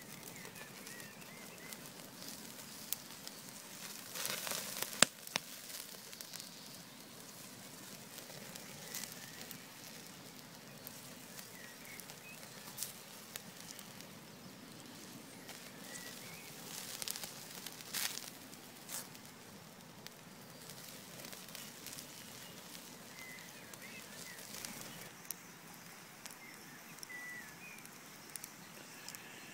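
Campfire crackling, with sharp pops scattered through; the loudest cluster of pops comes about four to five seconds in.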